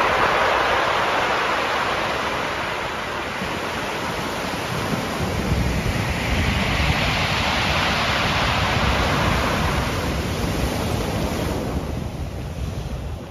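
Ocean surf breaking and washing up over a shore of pebbles and boulders, swelling near the start and again about six seconds in, with wind rumbling on the microphone.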